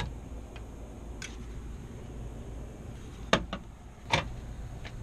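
Sharp knocks and clicks of hand and tool work inside a bare car door, where the window glass is being handled: a faint click about a second in, two loud knocks close together a little after three seconds, and one more about a second later, over a steady low hum.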